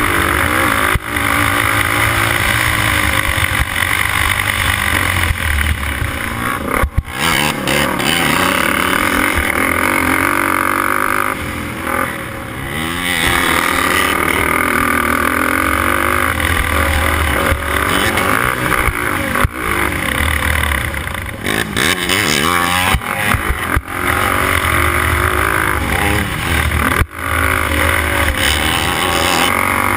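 A racing quad's engine at race pace, revving up and down as the throttle is worked, with a few brief dips where the throttle is cut.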